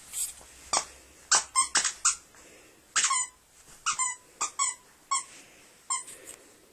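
A squeaky dog toy squeaked again and again by a small dog: about a dozen short squeaks in irregular bursts, several falling in pitch.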